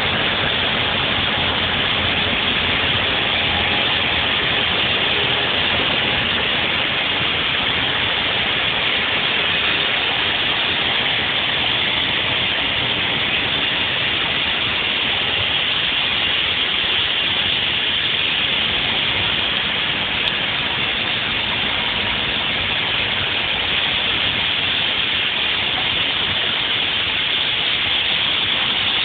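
Diesel freight locomotive running as it pulls its cars away, its engine sound thinning out over the first several seconds, under a steady rushing hiss that stays loud throughout.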